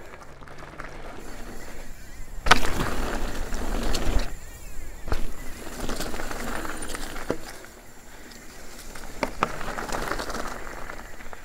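Steel hardtail mountain bike, a custom Dawley Rallye, rolling fast over loose dirt and dry leaves, its tyres crunching and the bike clicking and rattling. A sharp, loud thud about two and a half seconds in is the landing off a small rock drop.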